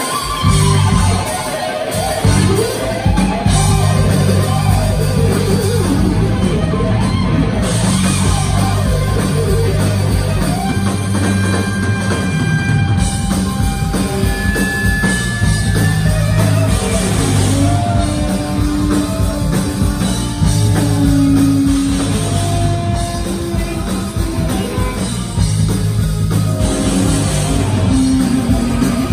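Live heavy metal band playing at full volume: distorted electric guitar through Marshall amplifier stacks over bass guitar and a drum kit, with held and bending lead notes.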